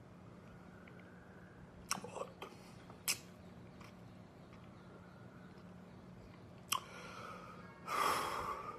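A man's mouth and breath sounds as he holds back emotion: a few lip smacks and tongue clicks about two and three seconds in and again near seven seconds, then a louder breath near the end. A faint steady hum lies underneath.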